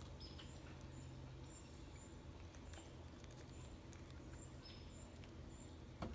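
Faint small clicks and scratches from an eastern chipmunk eating peanuts on a person's lap, over a quiet outdoor background with short high chirps repeating every half second or so. A sharper knock about six seconds in comes as the chipmunk leaps off.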